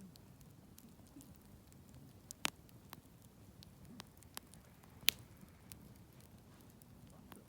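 Campfire of burning wood crackling, with irregular small pops and two louder snaps, one about two and a half seconds in and one about five seconds in, over a faint low rumble of the flames.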